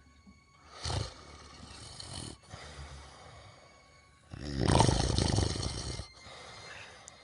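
Snoring from a sleeper: one long snoring breath about a second in, then a louder, more vibrating snore about four and a half seconds in that lasts nearly two seconds.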